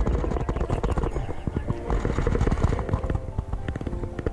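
Rapid clicking and knocking handling noise as a hooked silver perch is swung in on the line and gripped by hand.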